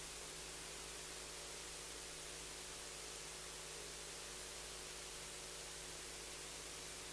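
Steady hiss with a faint, constant electrical hum underneath: the background noise of an open microphone in a quiet room.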